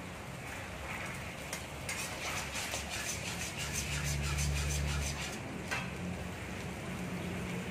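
Sauce bubbling and sizzling in a steel wok while a metal wok ladle stirs and scrapes through it in quick strokes, with a single sharp tap of the ladle against the wok after about six seconds.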